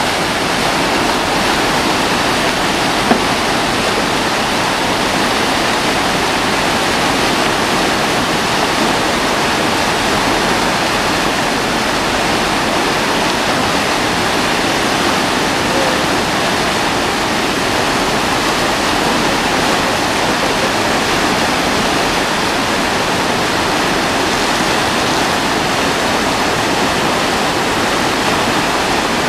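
Whitewater rapids of a slalom course rushing steadily, with one brief click about three seconds in.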